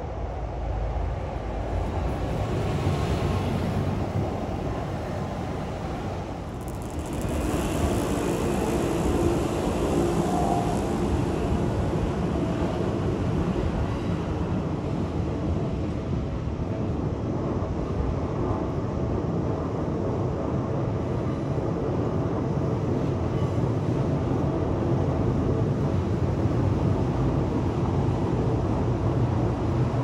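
Keikyu electric train running past: a steady rumble of wheels and motors, a little louder from about seven seconds in.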